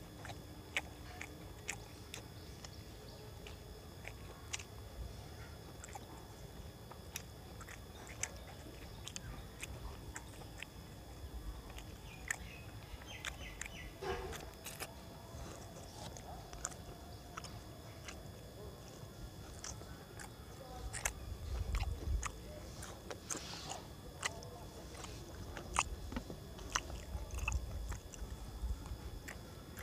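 Chewing and mouth sounds of a man eating rice and chicken curry by hand: scattered small wet clicks and smacks, with heavier chewing in the last third.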